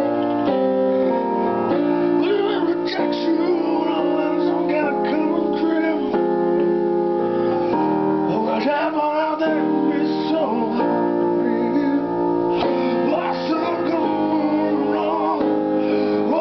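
Music: a song with held chords that change every second or two and a wavering singing voice over them.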